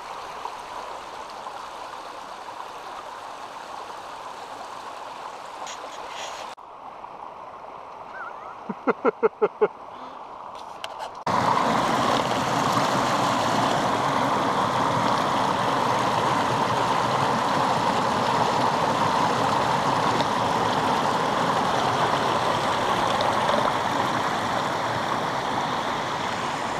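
A rocky upland stream rushing and splashing down small white-water falls, loud and steady from about eleven seconds in. Before that comes a quieter steady hiss, and a little later a quick run of about six short pitched tones.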